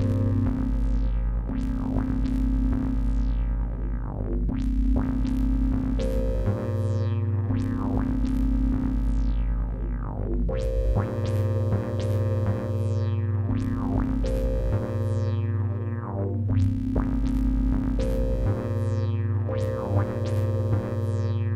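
Synthesizer funk from a Korg microKorg and a Behringer Neutron, with the microKorg's arpeggiator playing the Neutron, over held bass notes, through a reverb-delay pedal. Bright filter sweeps open and close every second or two.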